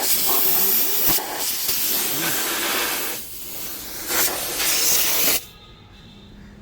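A loud, steady hiss, like gas escaping under pressure, that cuts off suddenly about five seconds in, leaving a quiet low hum.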